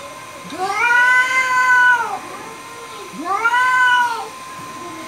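Domestic cat yowling twice in anger at another cat, two long drawn-out calls, the first longer, each rising and then falling in pitch.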